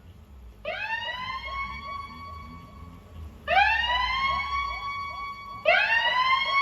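Siren sound effect fired through a sound-system rig: three rising wails, each swooping up sharply and then holding its pitch.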